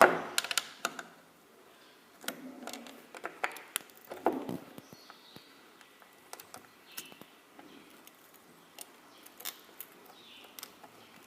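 Light clicks and taps of small metal tools, tweezers and a soldering iron, handled against a circuit board while a component is being desoldered, with one sharper knock at the start.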